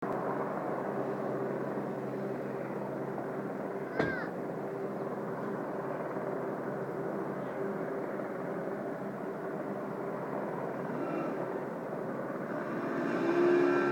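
Two distant helicopters hovering overhead: a steady drone with a low hum. A brief high chirp comes about four seconds in, and the sound grows louder near the end.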